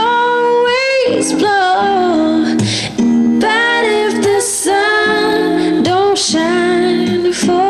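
Recorded song with a woman singing long held notes with vibrato over an instrumental accompaniment.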